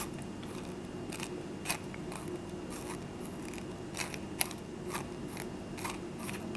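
Irregular small clicks and scrapes of the threaded plastic handle of a soldering iron being unscrewed by hand, the two sharpest about a second and a half and four and a half seconds in, over a steady low hum.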